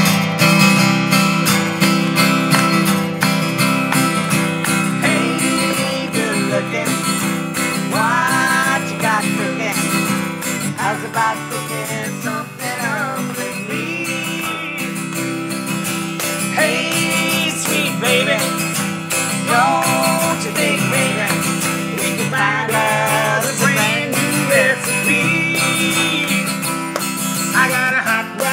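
Acoustic guitar strummed in a steady country rhythm, with a woman and then a man singing over it from a few seconds in.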